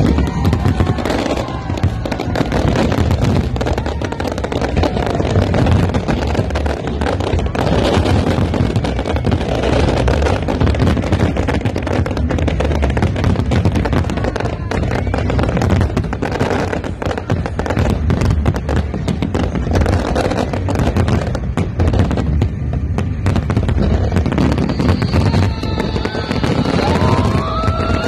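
Fireworks barrage: a dense, continuous run of bangs and crackling from many shells bursting at once. Rising and falling whistles join in near the end.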